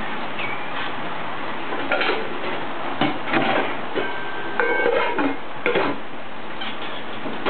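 Model freight train cars rolling past on track: a steady rolling noise broken by irregular clicks and clatter from the wheels and couplers, with a couple of brief high squeaks.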